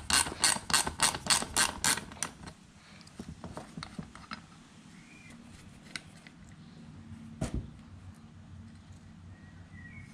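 Ratcheting ring spanner clicking rapidly, about five clicks a second, as a 14 mm bolt is undone; the clicking stops about two seconds in. After it, only a few faint knocks.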